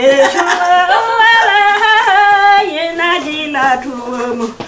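An elderly woman singing unaccompanied: long held notes that step up and down, with a wavering ornament on some of them and a short break for breath near the end.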